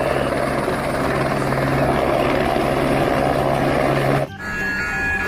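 Toy helicopter's helicopter sound effect: a steady whirring rotor noise over a low hum, which cuts off abruptly about four seconds in. After it, electronic musical tones begin.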